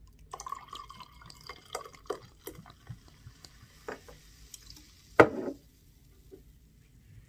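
Gin poured from a bottle into a glass: liquid running in for about two seconds with small clinks of glass, then a few light ticks. About five seconds in comes a single sharp knock, the loudest sound.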